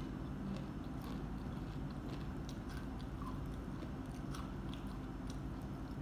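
A person chewing and biting fried chicken close to the microphone, with small mouth clicks and smacks scattered throughout, over a steady low hum.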